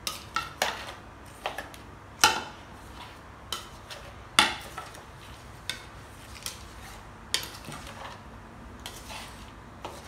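Metal spoon and fork clinking and scraping against a mixing bowl at irregular intervals as a salad dressing is stirred so the palm sugar dissolves. Two clinks, about 2 s and 4.5 s in, are louder than the rest.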